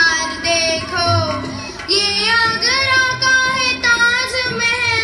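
Music: a song with a high singing voice carrying a gliding melody over instrumental backing.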